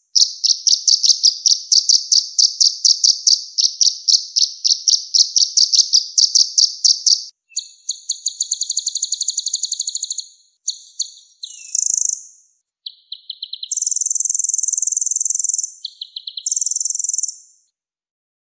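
Konin song from a master recording: a long, fast roll of repeated high notes, about four a second, for some seven seconds, then higher, faster buzzing trills and short chirping phrases that stop near the end.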